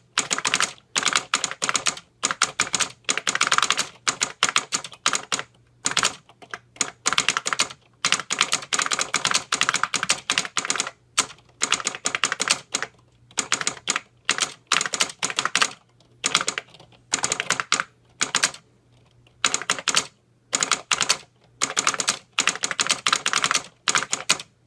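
Fast typing on a 1978 Harris Digitran Z-leaf keyboard with linear capacitive copper-leaf switches, a solenoid clacking with each keystroke. Rapid runs of clicks broken by short pauses, stopping just before the end.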